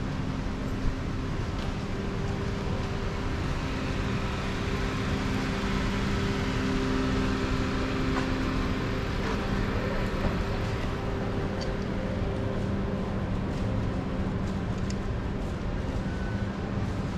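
Traffic noise with a vehicle engine humming steadily, a constant low rumble with a few faint clicks.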